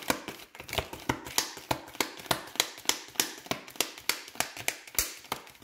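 A deck of oracle cards being shuffled by hand, the cards slapping together in an even rhythm of about three clicks a second.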